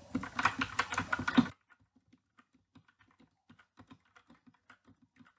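HK Gaming GK61 60% mechanical keyboard with red switches being typed on rapidly in a sound test, a fast patter of key clicks. The typing is loud for about the first second and a half, then drops abruptly to much fainter clicking.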